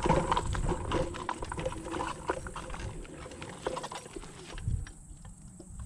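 Kugoo Max Speed electric scooter rattling and knocking over rough ground, with many short clicks over a low rumble that grow quieter toward the end.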